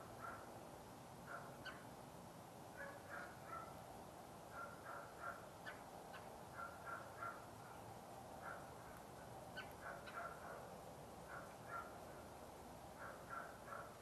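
Faint bird calls: short harsh notes repeated in clusters of two to four, a cluster every second or so.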